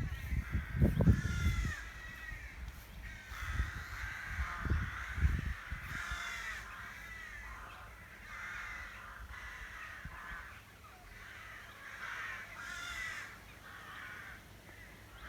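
A rookery of many rooks cawing together, harsh overlapping calls that never stop. Low rumbling noise on the microphone comes and goes in the first few seconds.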